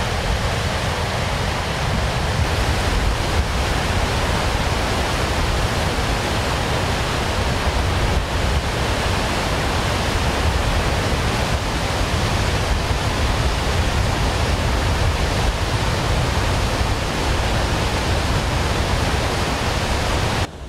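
Floodwater from Lake Conroe's raised level rushing through the open spillway gates of the Lake Conroe dam and churning in the whitewater below: a loud, steady rush of falling water. It cuts off abruptly near the end.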